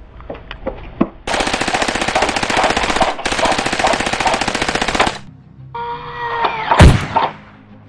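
Machine-gun sound effect dubbed over a Nerf blaster: two long bursts of rapid automatic fire with a short break between. A drawn-out yell and a heavy thud follow near the end.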